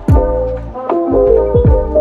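Lo-fi instrumental background music with a steady beat.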